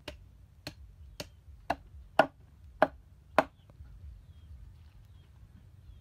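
Meat cleaver chopping into a whole raw chicken on a wooden chopping block: seven sharp strikes, about two a second, the later ones louder, stopping about three and a half seconds in.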